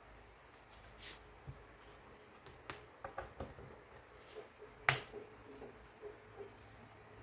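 Small clicks and knocks of a plug being pushed into a power-strip socket, then the sharp click of the power strip's rocker switch being turned on about five seconds in, the loudest sound.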